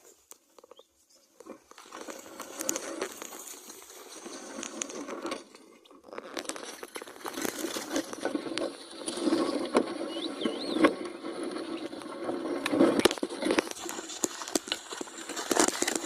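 Cow-drawn mouldboard plough scraping through soil, with earth crumbling and rustling and scattered knocks and hoof steps; it breaks off briefly about six seconds in.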